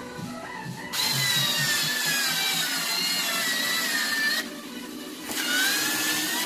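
DEKO cordless electric screwdriver whining under load as it drives a long screw into a wooden stud: one run of about three and a half seconds starting a second in, a brief pause, then a second run near the end.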